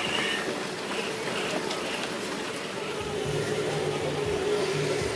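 Electric motor and gears of a radio-controlled scale crawler truck whining as it drives over rough ground, growing stronger and steadier about three seconds in.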